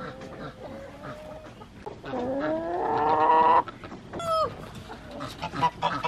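Chickens calling: a rooster crows once, one long call rising in pitch that cuts off sharply, about two seconds in, followed a second later by a short falling squawk.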